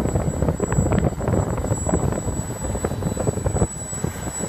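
Small turbine engine of a radio-control model jet idling as the model taxis, a thin steady high whine, with gusty wind rumbling on the microphone that eases about three and a half seconds in.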